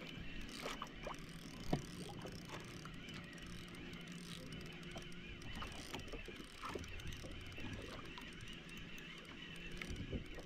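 Fishing boat's engine running steadily, with scattered light clicks and knocks on board and one sharper knock just under two seconds in.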